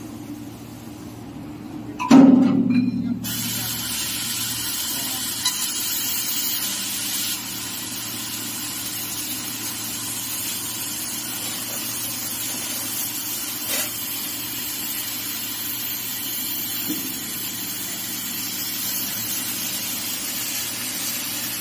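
Laser tube-cutting machine bevel-cutting a square steel tube: a loud ringing metallic clang about two seconds in, then a steady high hiss of the cutting head's gas jet and the cut, which starts abruptly about a second later and runs on with a few faint ticks.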